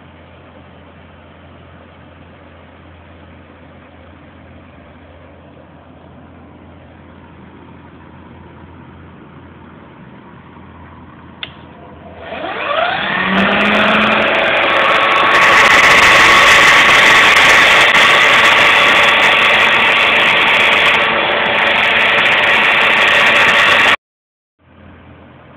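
Electric drill motor driving a homemade mini wood lathe, with its speed set by a light-dimmer controller. After a faint steady hum and a click, the motor whines up in pitch about halfway through as the dimmer is turned up. It runs loud and fast for about ten seconds, then cuts off suddenly near the end.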